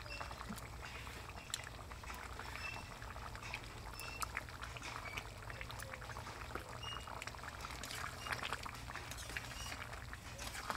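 Thin chicken and potato curry simmering in a metal pan over a wood fire, with scattered small bubbling pops and clicks as a metal spatula stirs it. A few short high chirps come and go.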